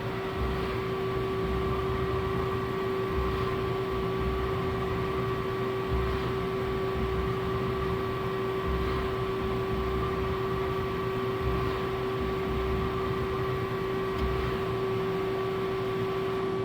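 Remedy SL25 CNC gang tool lathe running while cutting a tapered thread: a steady machine hum with a constant whine over a pulsing low rumble, and a faint tick about every three seconds.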